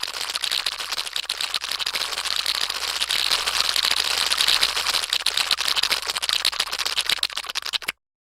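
A cartoon sound effect: a dense, fast clatter of rapid clicks, a little louder in the middle, that cuts off suddenly near the end.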